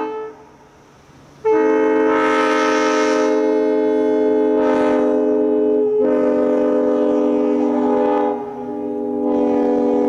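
Prime 920 locomotive air horn, its chambers freshly refurbished, sounding a chord of several notes together. One blast cuts off right at the start; after a gap of about a second comes a long blast lasting several seconds, which dips briefly and then sounds again.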